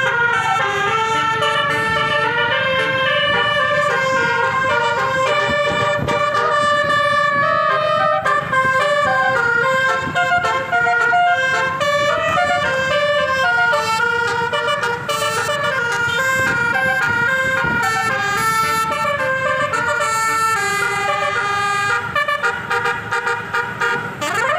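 Tourist bus's Basuri-style telolet horn playing a melody of stepped notes, over the low rumble of traffic.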